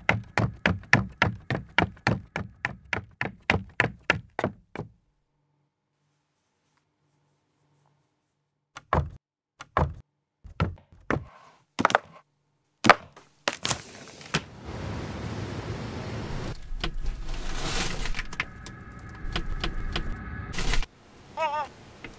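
Footsteps in a quick, even series for about five seconds, then silence. After that come scattered knocks and, from about halfway through, a steady hissing noise that stops shortly before the end.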